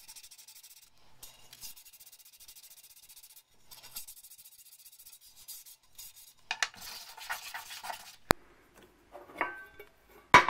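Sandpaper rubbed by hand over a steel disc from an old electric cooker, in quick repeated strokes that grow louder about two-thirds of the way in. Near the end come a sharp click, a brief metallic rattle, and then a louder sharp knock as the metal part is handled.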